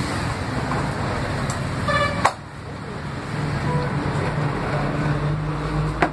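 Road traffic noise with a short horn toot about two seconds in, followed by a sharp click.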